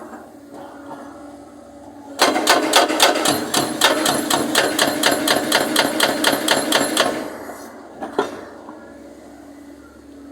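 Hydraulic breaker hammer on an excavator firing a fast, even run of blows, about five a second for some five seconds, starting about two seconds in. A steady engine hum runs underneath, and a single knock follows about a second after the run stops.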